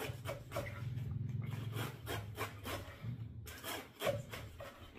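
Kitchen knife slicing through a head of romaine lettuce onto a wooden cutting board: a quick run of crisp cutting strokes, about three a second, over a low steady hum.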